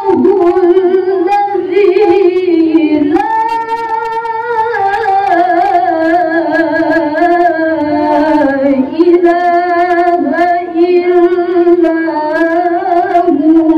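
A woman reciting the Qur'an in the melodic tilawah style, holding long ornamented notes with a wavering pitch, pausing briefly for breath about three seconds in and again near nine seconds.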